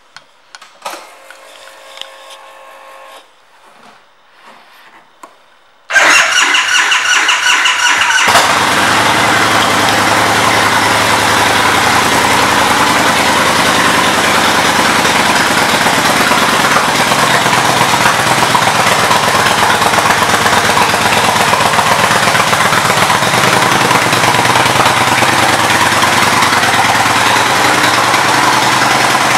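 1999 Excelsior-Henderson Super X's 1386 cc V-twin engine being started: quiet with a few small clicks, then about six seconds in the starter cranks with a whine for about two seconds before the engine catches. It then runs steadily at idle.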